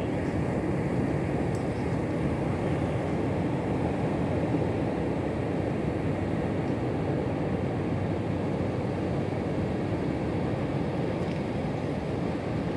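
Steady, low rushing beach ambience, with no distinct events standing out.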